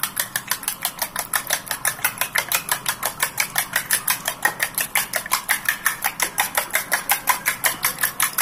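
Metal utensil beating raw eggs in a ceramic bowl, clicking against the bowl in a fast, even rhythm of about six or seven strokes a second as the eggs and seasoning are whisked together.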